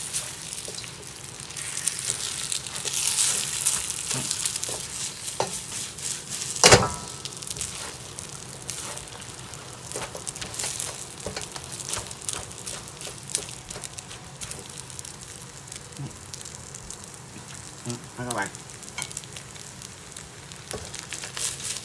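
Fried rice and beaten egg sizzling in a hot wok, stirred and turned with a spatula that scrapes across the pan again and again. A single sharp knock stands out about seven seconds in.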